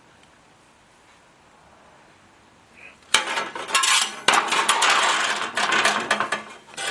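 Quiet for about three seconds, then a busy run of metal clinking and clattering as loose sheet-metal pieces and tools are handled on a steel bench.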